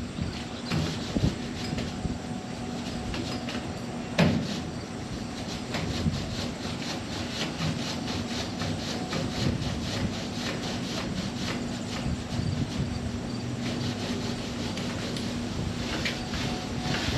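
Paint roller working primer onto a car body panel: a run of repeated short rubbing strokes, over a steady low hum.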